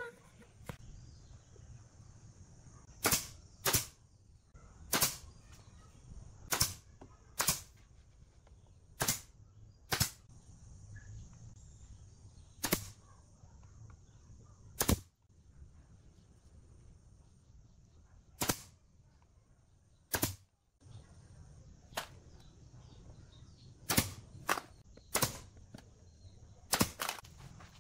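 Pneumatic brad nailer firing into pine, one sharp shot at a time at irregular intervals, some in quick pairs, about seventeen shots in all.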